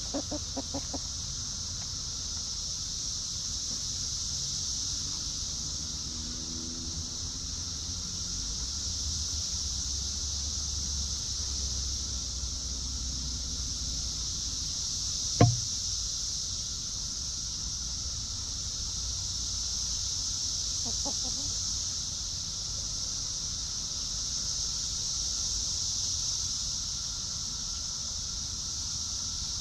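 Steady high-pitched insect chorus running throughout. A few short clucks from hens come near the start and again about 21 seconds in, and a single sharp knock sounds about 15 seconds in.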